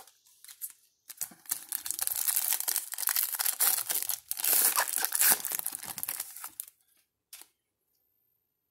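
A foil trading-card pack being torn open, a crackly tearing and crinkling of the wrapper that goes on for about five and a half seconds, then a single small click.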